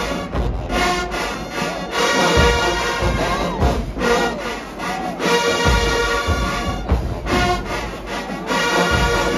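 HBCU marching band playing: loud brass horns over bass drums and timpani, in punchy phrases broken by short breaks.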